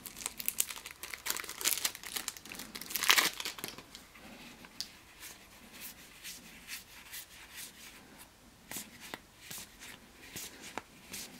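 A deck of board-game cards being handled and thumbed through: dense crinkling rustle with a louder scrape about three seconds in, then sparser light card clicks as the cards are flipped one by one.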